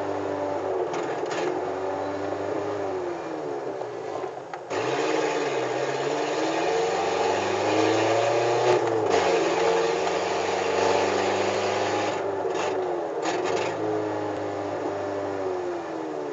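VW Gol G4's engine running loud through an exhaust with its lambda sensor removed and a straight-through pipe, revving up and down as it drives. There is a brief dip in sound about four and a half seconds in, and then the pitch climbs and falls again.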